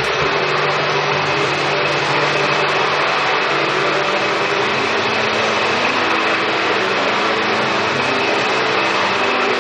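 Electric mixer motor running steadily with a high whine, its metal shaft stirring a chlorine-bleach slurry of calcium hypochlorite and soda ash in a plastic barrel.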